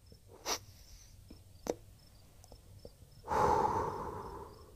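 A person's long exhaled breath about three seconds in, fading away, over faint, evenly repeating cricket chirps, with a few soft clicks before it.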